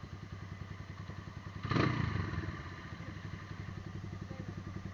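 155cc cafe racer motorcycle's single-cylinder engine idling with an even, pulsing beat. About two seconds in, a short, loud burst rises over the idle and dies back down.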